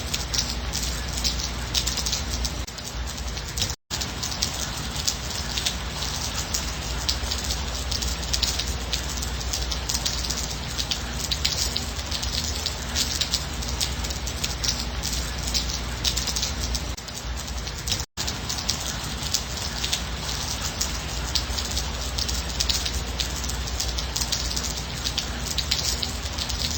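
Steady rain falling, a constant hiss full of fine patter from individual drops. The sound cuts out for an instant twice, about four seconds in and again near eighteen seconds.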